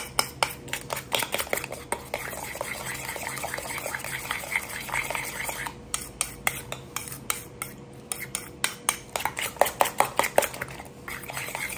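A metal spoon beating eggs in a stainless steel bowl: quick, repeated clinks and scrapes of the spoon against the bowl as the egg mixture is whisked.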